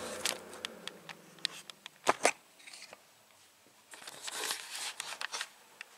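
Handling noise of a camera being taken off its tripod: scattered small clicks and rubbing, with two sharp clicks a little after two seconds in and a stretch of rustling near the end.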